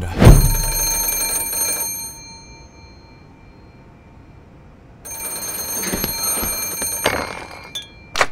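Landline telephone bell ringing twice, each ring lasting about two seconds with a pause of about three seconds between. A sharp click near the end as the handset is picked up.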